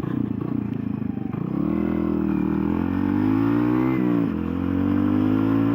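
Single-cylinder 125cc Lexmoto Adrenaline supermoto engine pulling away from low revs, its pitch rising as it accelerates, dropping sharply at a gear change about four seconds in, then rising again.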